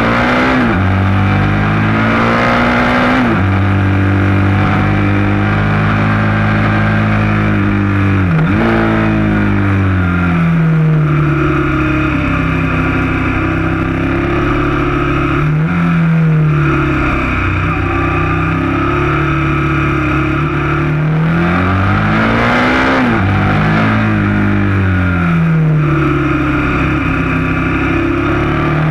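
KTM 1190 Adventure S's V-twin engine pulling the bike up a twisting mountain road. Its pitch climbs steadily under throttle and drops sharply several times as the rider shifts or rolls off for bends.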